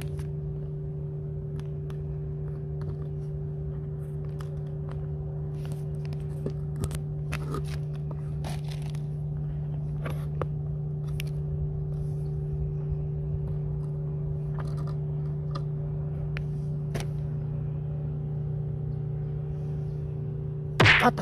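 A steady low machine hum with scattered light clicks and scrapes, and a sudden short loud noise just before the end.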